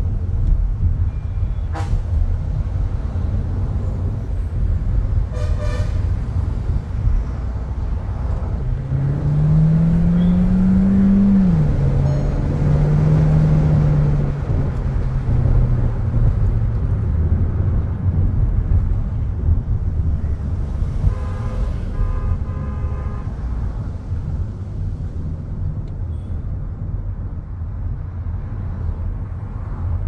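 In-cabin sound of a Volkswagen Taigun GT's 1.5 TSI turbocharged four-cylinder petrol engine on the move, over a steady road rumble. About nine seconds in, the engine note rises under acceleration, then drops suddenly as the dual-clutch gearbox shifts up and settles lower. Car horns toot briefly about five seconds in and again just after twenty seconds.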